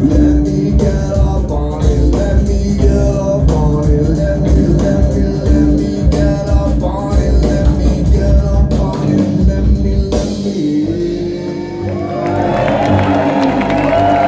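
Live rock band playing the final bars of a song, with drums and bass stopping suddenly about ten seconds in, leaving a held note. The audience then starts cheering and whistling near the end.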